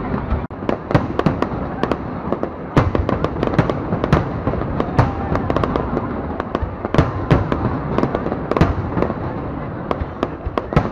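Aerial fireworks bursting in quick, irregular succession: many sharp bangs, several a second at times, over a continuous background rumble of crackle and echo.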